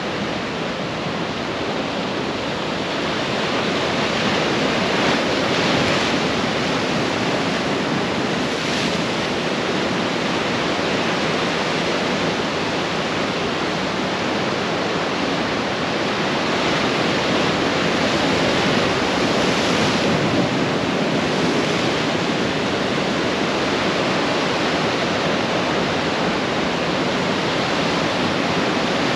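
Pacific surf breaking and washing ashore, a steady rush of waves that swells a little louder a few seconds in and again past the middle.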